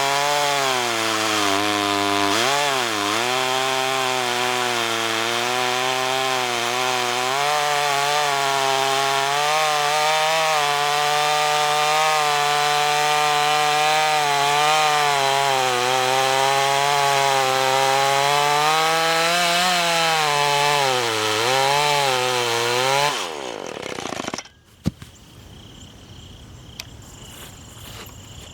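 Tanaka TCS33EB 32cc two-stroke chainsaw cutting through a log under full throttle, its pitch dipping briefly under load a few seconds in and again near the end. About three-quarters of the way through, the engine winds down and stops, leaving faint crickets.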